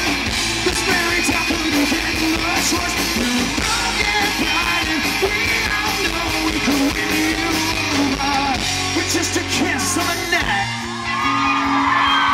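Live rock band heard from the crowd: a male lead singer over electric guitars, bass and drums. About ten and a half seconds in the low end drops out for a moment, then the band comes back in.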